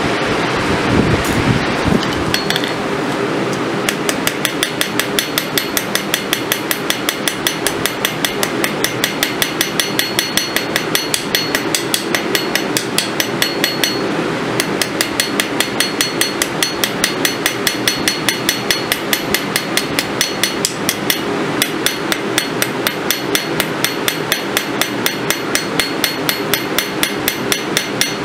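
Ball peen hammer striking a small steel split cross on an anvil in quick, even blows, about three a second, to texture its surface. The blows start a couple of seconds in and stop briefly a couple of times, over a steady rushing noise.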